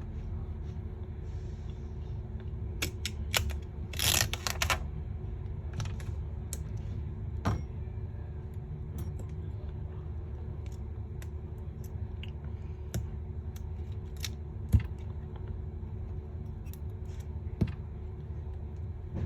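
Scattered light clicks and taps of small tools and phone parts being handled during a phone screen replacement, with a short cluster of rattling clicks about four seconds in, over a steady low background hum.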